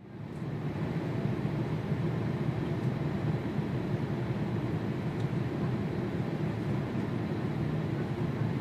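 Jet airliner engines running, a steady low rumble without rising or falling.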